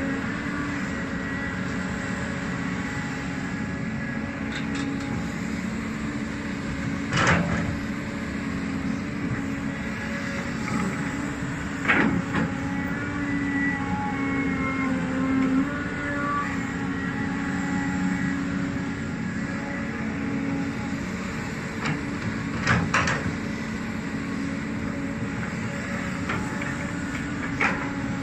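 Cat 320D excavator's six-cylinder diesel engine running steadily under digging load, with the hydraulics working. The steel bucket scrapes through rocky soil and clanks sharply against stones several times, the loudest about twelve seconds in.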